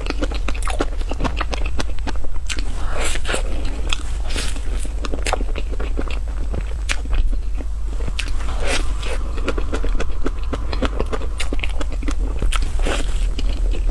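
Close-miked eating sounds of a person chewing strawberry crepe cake: soft, wet chewing with many small lip smacks and mouth clicks, over a steady low hum.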